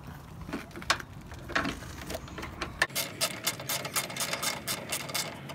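Hand ratchet wrench clicking as a nut is tightened on a truck's headlight mounting bracket: a few separate clicks and knocks, then a fast, even run of clicks from about three seconds in.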